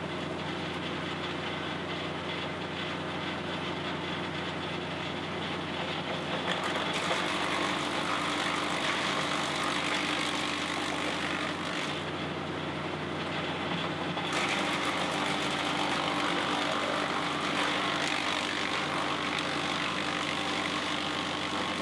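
Kubota diesel engine of a Bandit Model 90XL brush chipper running steadily. A harsher rushing noise rises over it about seven seconds in, falls away around twelve seconds and returns a couple of seconds later.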